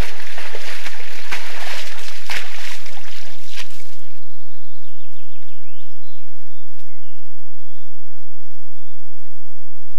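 Brown bear wading in a muddy puddle, water splashing and sloshing around its legs. This stops abruptly about four seconds in, leaving faint bird chirps.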